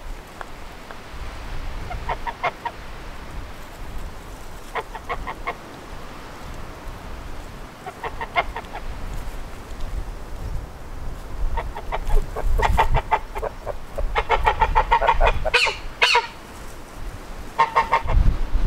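White domestic geese calling in short bursts of rapid honks, a handful of times, coming thicker and louder in the second half. Wind rumbles on the microphone underneath.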